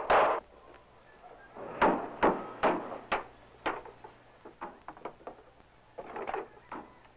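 Hammer blows on wooden framing: uneven runs of strikes about half a second apart, with lighter taps between the runs.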